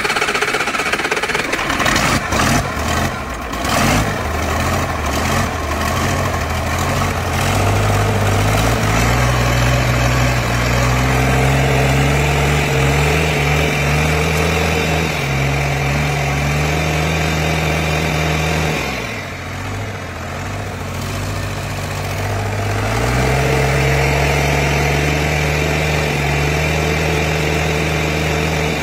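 Bare turbocharged inline diesel engine running. It runs unevenly for the first several seconds, then settles into a steady run; about two-thirds of the way through its speed sags, then picks back up and holds steady.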